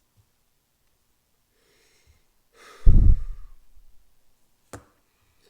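A person's loud sigh, the breath blowing on the microphone about three seconds in and fading over a second, followed by a single sharp click near the end.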